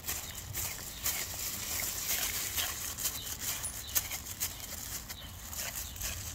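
A dog licking peanut butter off a plastic-wrapped canvas: quick, irregular wet tongue smacks and clicks, several a second.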